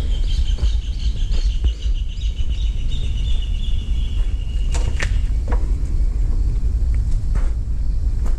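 Wind rumbling on the microphone throughout, with a bird's quick high chirping over the first four seconds or so and a few sharp knocks about five seconds in.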